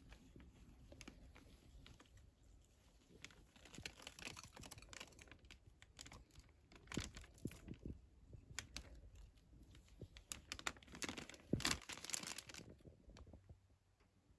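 Thin clear plastic bag crinkling and rustling in the hands as crickets are shaken out of it into a metal cup, with scattered light ticks and taps. Louder bursts of crinkling come about four, seven and eleven seconds in.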